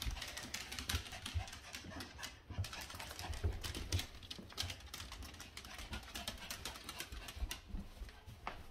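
Irregular light ticking and shuffling on a hardwood floor, typical of a small dog's claws clicking on the boards as it moves, with dull low thumps mixed in.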